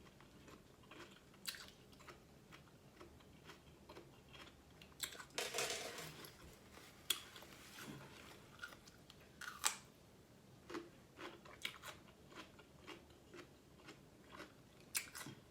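Close-miked eating from a seafood boil: chewing and biting with scattered wet smacks and clicks, and a longer crunching burst about five seconds in.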